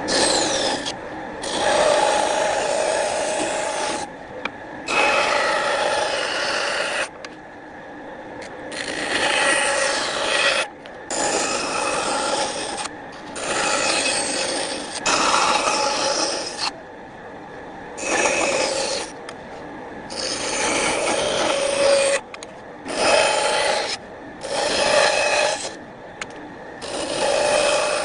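Wood being scraped in repeated bursts of one to two seconds each, with short pauses between them.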